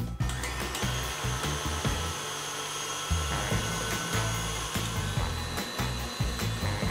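KitchenAid Artisan stand mixer running with its wire whisk attachment, whipping Swiss meringue; a steady motor whine sets in about a second in.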